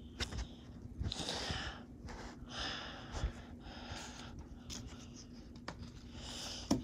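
A person breathing heavily close to the microphone, a breath about every second, with a few faint clicks.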